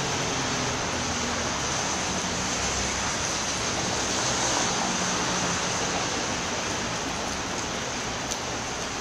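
Steady, even rushing noise, like running water or surf, with a faint low hum underneath.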